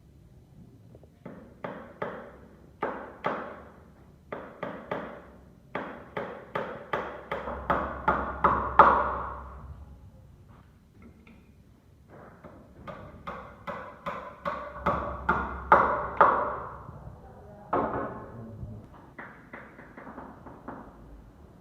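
Hammer blows on wood, sharp knocks with a ringing tone in runs that speed up to a loud finish, with a short lull about halfway through.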